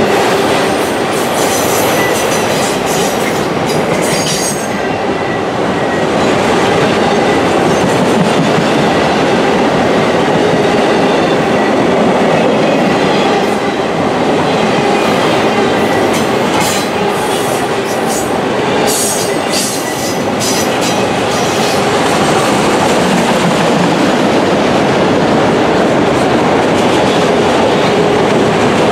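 CSX autorack freight cars rolling past close by: a loud, steady rumble of steel wheels on the rails with a thin steady squeal underneath. Bursts of rattling clatter come about a second in and again a little past the middle.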